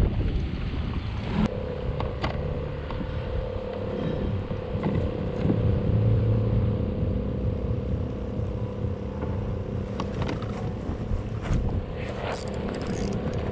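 A boat motor running steadily, with a level hum that comes in about a second and a half in, over wind and water rumble and a few sharp clicks.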